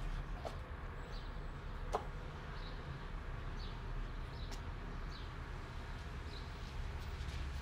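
Quiet outdoor ambience: a low steady rumble with short, high bird chirps about once a second and a few faint clicks.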